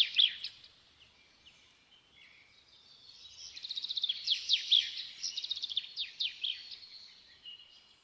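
A songbird singing in rapid trills and quick falling notes: a phrase that ends about half a second in, then a longer burst of song from about three to seven seconds in.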